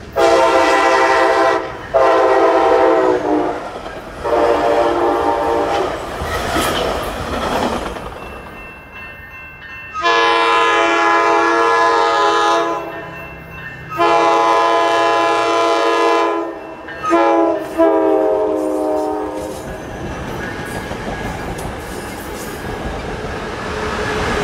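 Coaster commuter train locomotive horns. Three long blasts open, then after a stretch of rumble a second train sounds the long, long, short, long pattern that signals its approach to a grade crossing. The rumble of the train passing on the tracks follows.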